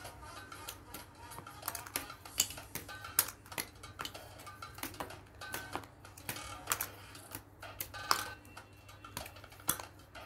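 Small pieces being pressed out of a pre-cut model-kit sheet by hand: irregular sharp clicks and snaps, a few a second, with light rustling of the sheet.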